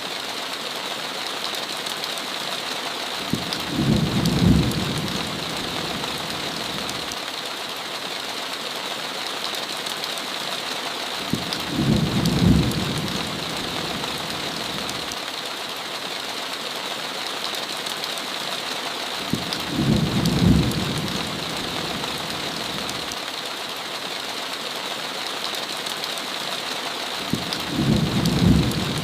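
Heavy rain falling steadily, with a low rumble of about a second and a half that comes back every eight seconds, four times in all, as thunder.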